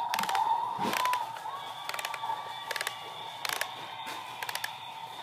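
Sharp plastic clicks and clatter of a Fungus Amungus toy being handled and worked, about a dozen irregular clicks, over a steady high tone that runs underneath.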